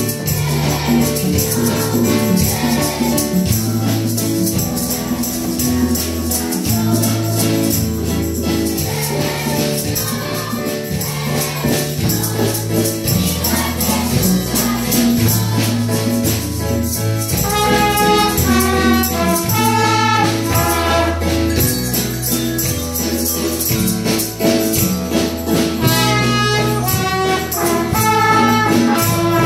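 A children's school ensemble playing a folk song: plastic tambourines shake a steady jingling rhythm over a stepping bass line. About two-thirds of the way in, trumpets come in with the melody.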